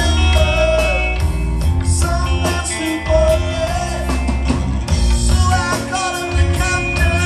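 Live rock band playing electric guitars and drums over a heavy low bass line, with a man singing.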